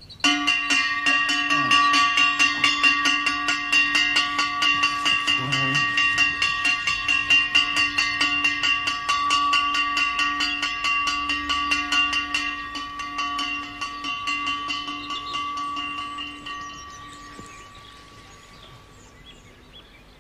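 A bell struck rapidly and continuously, ringing with several steady tones; it starts suddenly and dies away a few seconds before the end.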